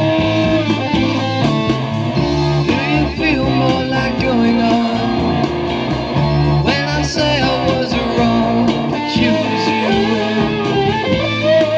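A 1960s rock song with guitar and singing, played through an LM386 chip amplifier on a dual power supply into wooden-cabinet loudspeakers as a listening test of the amp.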